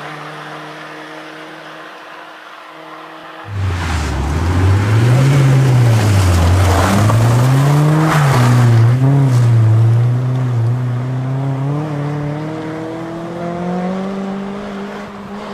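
Honda Civic rally car's four-cylinder engine at full throttle. It first fades away with falling pitch, then about three and a half seconds in it is suddenly much louder, revving up and down several times through a corner, then climbing steadily in pitch as the car accelerates away.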